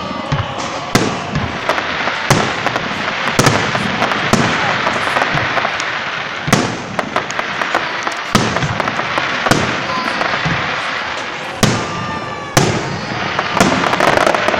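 Fireworks display: shells bursting with sharp bangs about every one to two seconds over continuous dense crackling.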